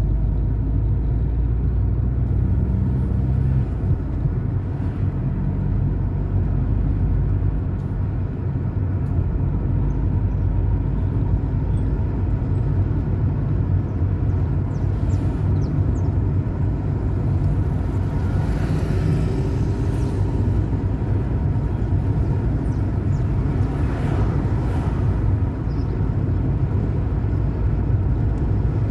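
Car driving through city streets: steady engine and road rumble, with a louder rush of noise about 18 to 20 seconds in and again briefly near 24 seconds.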